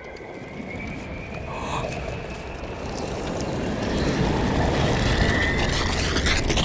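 Film sound effects: a low rumble that swells steadily louder, with a faint high whine drawn out above it.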